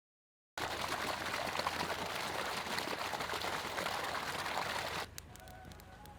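Water pouring in a steady stream, starting abruptly about half a second in and cutting off about five seconds in.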